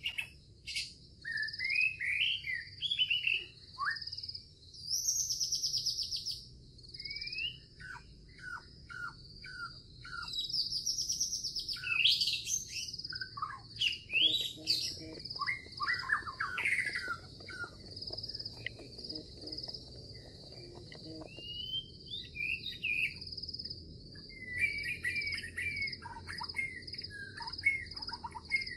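Birds chirping and whistling in short calls, with a steady high insect trill running underneath, like a nature ambience.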